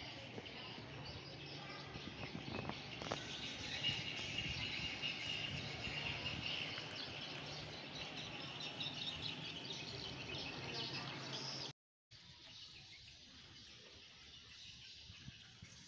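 Faint outdoor ambience with birds chirping over a steady background hiss. The sound drops out completely for a moment about twelve seconds in and comes back quieter.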